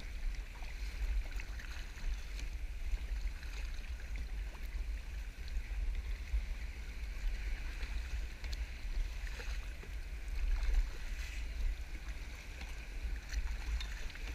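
Sea water sloshing and hissing around a kayak on choppy water, under a steady low rumble.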